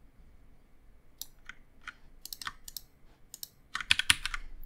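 Computer keyboard keys and mouse buttons clicking while nodes are copied and pasted: a few scattered clicks, then a quick run of louder clicks about four seconds in.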